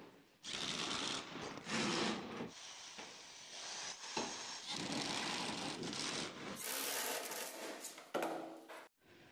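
Rough scraping and rubbing on plywood, in uneven spells of about a second each, cut off abruptly near the end.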